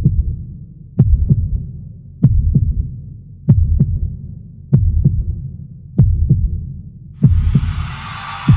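Heartbeat sound effect: slow, even double thumps (lub-dub) repeating a little less than once a second. A hissing wash of noise comes in about seven seconds in.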